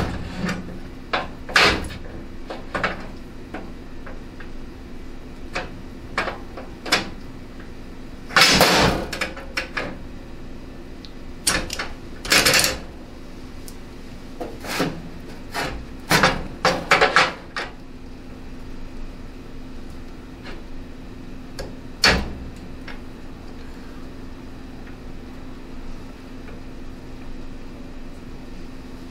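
Hands working a bar clamp and metal setup blocks on an aluminium radiator: scattered sharp clicks and knocks, a rasping scrape about a second long about eight seconds in, and clusters of quick clicks as the clamp is set. A steady low hum runs underneath.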